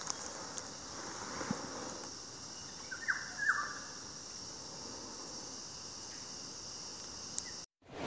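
Forest insects drone steadily and high, with a couple of short bird chirps about three seconds in.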